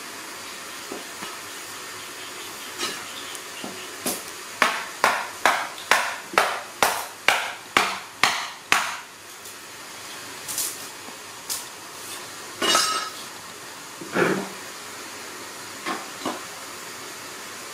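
A run of about a dozen sharp knocks, evenly spaced at a little over two a second, over a steady hiss, followed by a few scattered clanks, one of them ringing.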